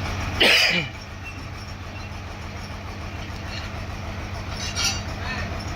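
Sawmill machinery running with a steady motor hum and rumble. A brief loud sound with a falling pitch cuts in about half a second in, and a shorter, higher one comes near the end.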